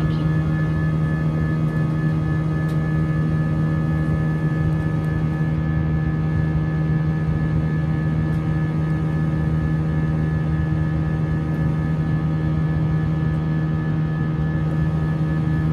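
Airbus A320's jet engines heard from inside the cabin during the climb: a steady drone of several even hum tones over a rushing noise, with no change in pitch or loudness.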